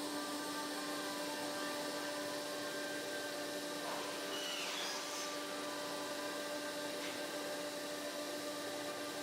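Steady machine hum and hiss from a running machine, with a brief falling whistle-like sweep about four seconds in.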